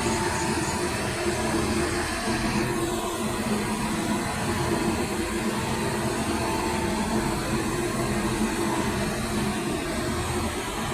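WAG-9 electric locomotive running after start-up: a steady whirring hum with a few faint held tones beneath it.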